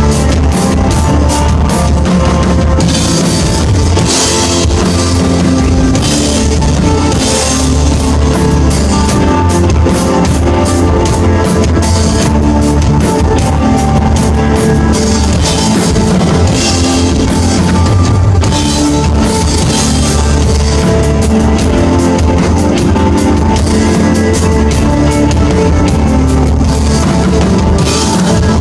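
Desert rock band playing live and loud: a drum kit with repeated cymbal crashes over a heavy bass line and electric guitar, without vocals.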